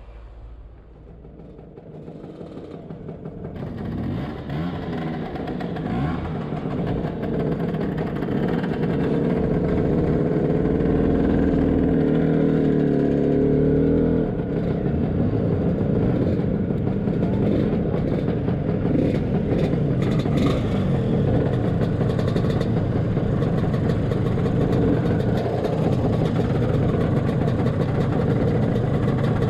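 Scooter engine heard from the rider's seat, pulling away and building up over the first several seconds, with a sudden change in note about halfway through like a gear change, then running steadily.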